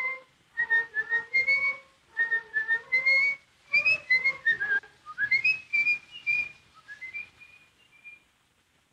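Music: a high, whistle-like melody in short, wavering phrases, dying away about eight seconds in.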